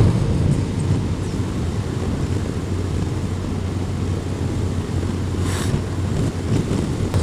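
Motorcycle engine running steadily at cruising speed, with wind rushing over the helmet-mounted microphone. About five and a half seconds in, a brief rush of noise comes as an oncoming van passes.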